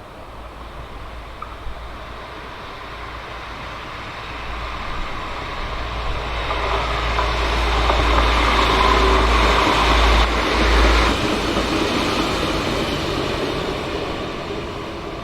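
A train passing by: its running noise and rumble build up, are loudest about two-thirds of the way through, then fade away.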